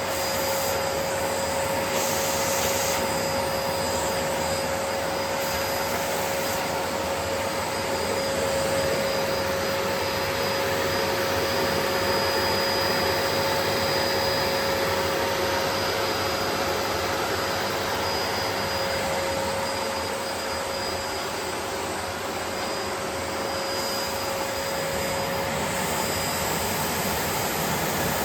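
Bosch BGS21X320 bagless vacuum cleaner running steadily: a continuous rush of air with a steady whine over it.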